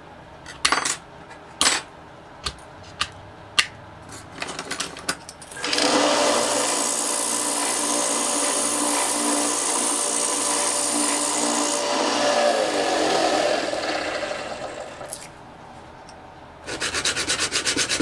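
A few sharp taps of small aluminum parts, then a belt sander running as an aluminum piece is ground against its belt, with the motor spinning down and fading out. Near the end, quick back-and-forth strokes of a sanding block rubbing on sandpaper begin.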